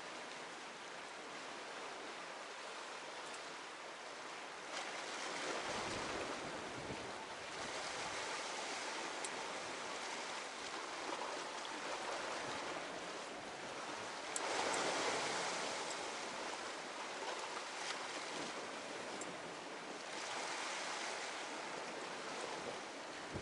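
Sea waves washing against the rocky shore below: a steady rushing that swells and eases several times, loudest about a quarter of a minute in.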